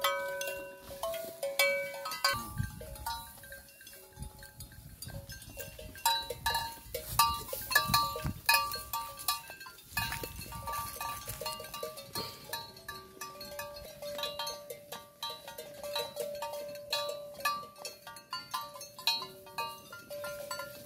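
Cattle neck bells clanking in irregular, repeated ringing strokes as the cows move, with a longer ringing tone in the second half. Knocks and rustling come in between about two and ten seconds in.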